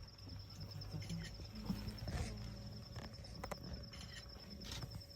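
Bush ambience: a steady, finely pulsing high insect trill over a low hum, with scattered soft knocks and rustles.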